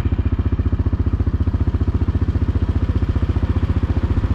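Four-wheeler (ATV) engine running at a steady speed, a fast, even chug of exhaust pulses.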